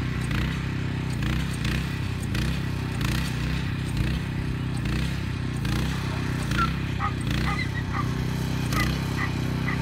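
A small engine running steadily, with short high-pitched calls over it that come more often in the second half.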